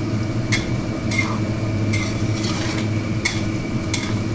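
Minced shallots deep-frying in pork lard at high heat with a steady sizzle. A spatula knocks and scrapes against the pan several times as they are stirred, over a steady low hum.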